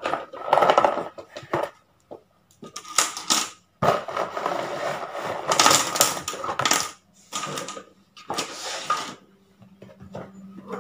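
A cardboard toy box shaken and handled, with small plastic swords rattling inside it and clattering out onto a table in irregular bursts of clicks and rustles.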